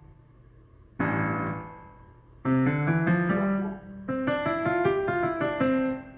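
AODSK S-200 fully weighted digital piano playing its piano voice with the reverb effect on. A chord is struck about a second in and left to ring out, followed by a short phrase of chords and moving notes.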